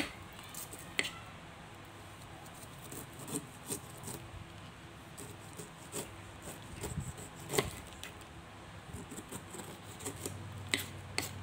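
Small kitchen knife paring the skin off a pineapple on a wooden cutting board: irregular crisp cuts through the rind and clicks of the blade against the board, two of them louder, about a second in and near the middle.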